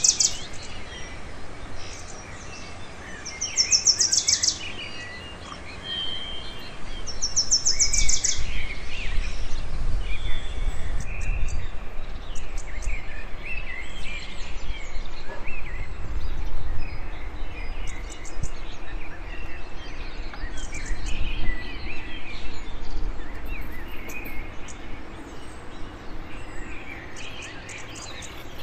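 Birds chirping and calling, with three loud, fast, high trills in the first nine seconds, over a steady outdoor background hiss and low rumble.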